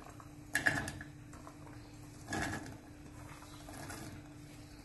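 Diced potato and other cut vegetables tipped into an empty stainless-steel pressure cooker, the pieces clattering against the metal base in a few short bursts: about half a second in, again just past two seconds, and more faintly near the end. A faint steady hum runs underneath.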